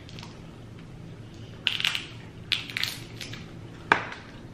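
King crab leg shells cracked and snapped apart by hand: a few crackling crunches around the middle, then one sharp snap near the end.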